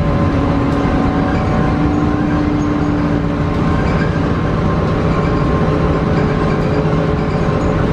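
Cabin noise of a 2006 Gillig hybrid transit bus on the move: a loud, steady drone from its Cummins ISB 5.9 L diesel and Allison EP40 hybrid drive. A mid-pitched hum fades out about halfway through, while a deeper hum carries on.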